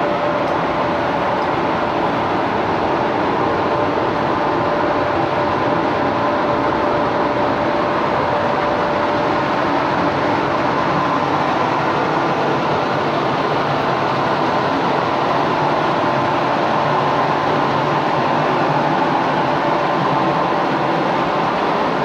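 Paint spray booth's ventilation fans running: a steady rush of air with a faint, even hum.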